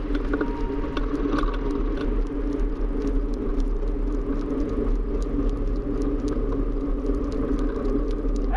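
A vehicle engine running steadily with a low rumble and scattered light ticks.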